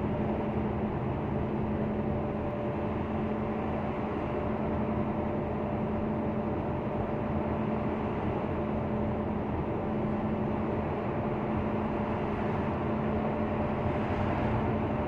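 Hino truck's diesel engine and road noise heard from inside the cab, cruising steadily in sixth gear: an even drone with a constant hum. The freshly overhauled engine runs smooth, with no knocks or odd noises.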